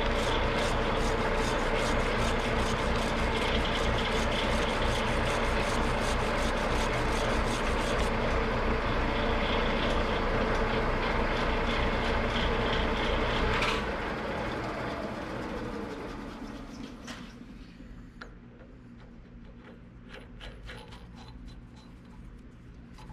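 Metal lathe running steadily, then switched off with a click about fourteen seconds in and spinning down over a few seconds. Near the end there are faint light clicks as a nut is tried on the freshly cut thread, which is a little tight.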